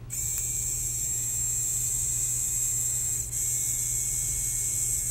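The small electric gear motor of a FlushMinder automatic flush actuator whines at a high pitch as it drives the flush lever arm. It runs for about three seconds, winds down and stops briefly, then starts again.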